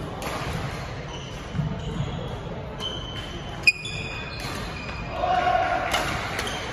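Badminton play on a wooden hall floor: rubber-soled shoes squeak in short high chirps, and a racket strikes the shuttlecock with one sharp crack a little before four seconds in, the loudest sound. A player calls out about five seconds in.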